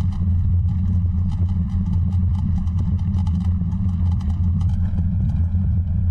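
Wind rumbling on the microphone of a camera carried on a moving bicycle, with faint, rapid rattling clicks from the ride throughout.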